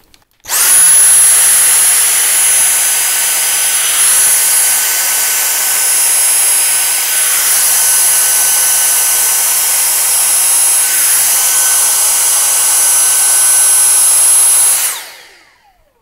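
Cordless handheld vacuum cleaner switched on, running steadily with a high-pitched whine over a rushing suction noise as its brush nozzle is worked over a fridge's condenser coils to clear the dust, then switched off near the end, its motor whine falling as it spins down.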